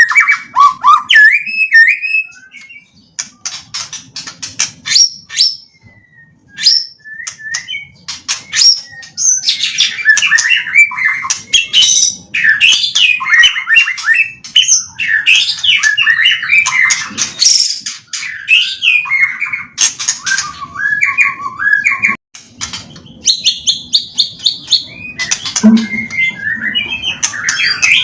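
White-rumped shama singing a long, varied song of quick whistled sweeps, trills and fast ticking chatter, its taught repertoire of mimicked phrases. The song thins out briefly twice in the first third, then runs on densely.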